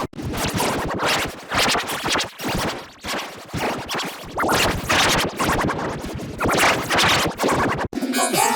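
Loud, heavily distorted and processed audio-effect edit, a dense noisy texture that swells and fades roughly once a second. It cuts off abruptly near the end and switches to a different, pitched sound.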